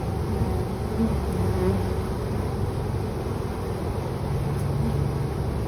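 Honeybee swarm buzzing steadily as it marches into a hive box, with the odd bee briefly buzzing close past, over a low background rumble.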